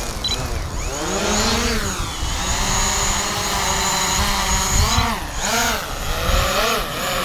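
DJI Mavic Pro quadcopter's motors and propellers spinning up and lifting off: a steady buzzing whine whose pitch rises about a second in, settles, then swoops up and down again around five seconds in as the drone manoeuvres.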